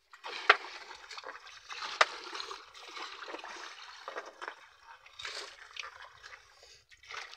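Water splashing and trickling beside a small paddled outrigger canoe as a wet fishing net is fed over the side, with sharp knocks about half a second and two seconds in.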